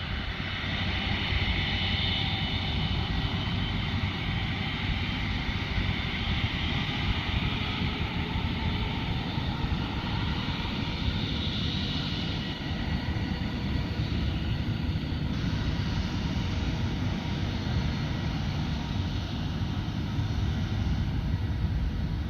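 Airbus Beluga XL's Rolls-Royce Trent 700 turbofans running at low taxi power: a steady jet rumble with a higher whine that swells about two seconds in and again around twelve seconds.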